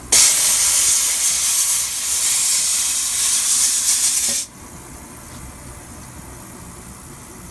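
Jeweller's high-pressure steam cleaner blasting a jet of steam from its nozzle to blow polishing debris off a ring: a loud hiss that starts suddenly and cuts off sharply after about four and a half seconds.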